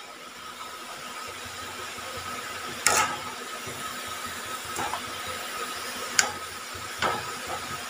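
Breadfruit chips deep-frying in hot oil in a metal kadai: a steady sizzle, with a few sharp clinks of a wire skimmer against the pan, the loudest about three seconds in.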